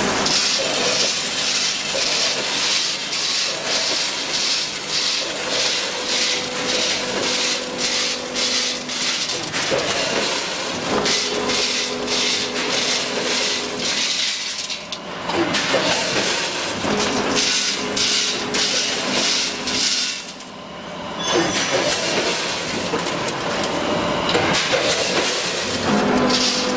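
Multi-head weigher running with dry fusilli pasta: a fast, continuous clatter of pasta rattling through the stainless-steel weigh hoppers, with a steady hum that comes and goes every few seconds.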